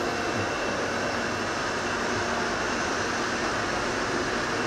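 Steady railway station ambience under a glass-roofed train shed: an even hum and hiss with no distinct events.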